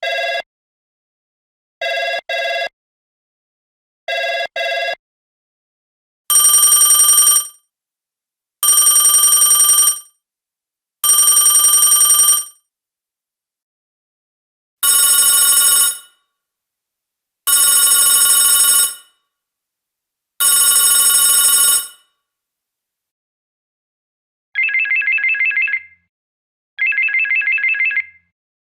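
A sequence of different telephone ringtones, each repeating a few times with silent gaps between. First come short double rings (ring-ring), then three long rings in one tone, then three long rings in a brighter tone. Last comes a warbling electronic trill in short bursts.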